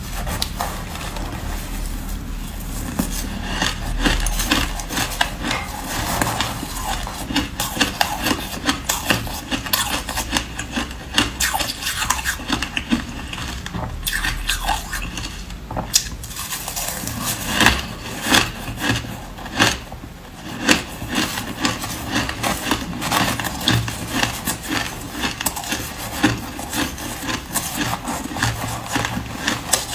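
A metal spoon scraping, stirring and scooping through a bowl of soft shaved ice, an unbroken run of rough scrapes with some louder strokes.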